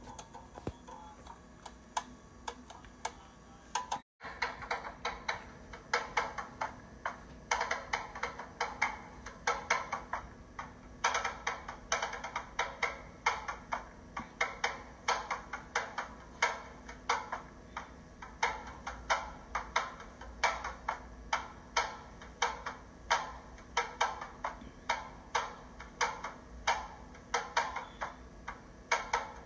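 Steady rhythmic tapping, a few sharp strikes a second, with a brief dropout about four seconds in.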